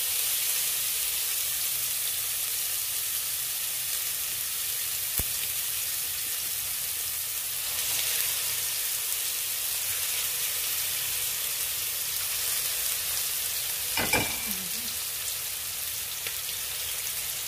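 Kefta patties of spiced minced meat sizzling in hot oil in a frying pan, a steady hiss, as more raw patties are laid into the pan. A short, louder sound comes about fourteen seconds in.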